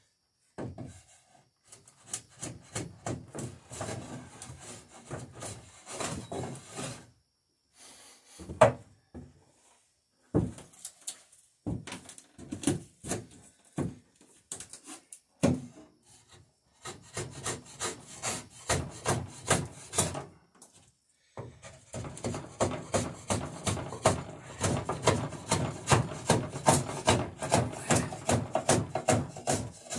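Hand tool working a wooden plank in runs of quick repeated strokes, broken by short pauses and a few single sharp knocks.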